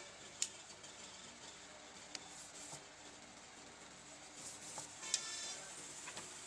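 Faint room tone with a few light taps, then about four and a half seconds in a scratchy rubbing as tailor's chalk is drawn along a wooden ruler across cotton shirt fabric, with one sharp click in the middle of it.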